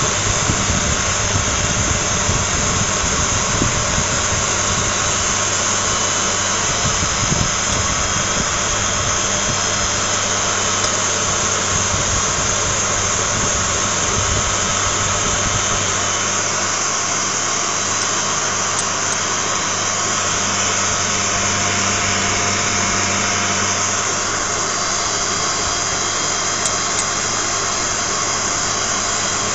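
Vertical electric grinding mill running steadily under load, grinding paste: a constant motor hum with a dense, even whirring and grinding noise.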